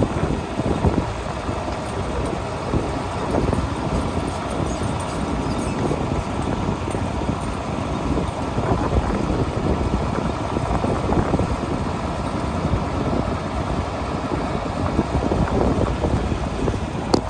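Farm tractor engine running steadily, pulling a hay wagon along at a slow pace, with a constant low rumble.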